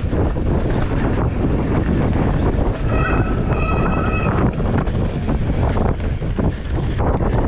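Wind buffeting the handlebar camera's microphone as a mountain bike rolls fast over a sandy dirt trail, with tyre noise and frequent small knocks and rattles from the bike. A brief high-pitched tone, in two parts, sounds about three seconds in.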